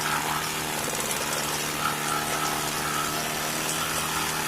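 Early-1950s Goodyear Sea Bee 5 two-stroke outboard motor running steadily at a constant pitch, opened up towards full throttle on its first run in many years.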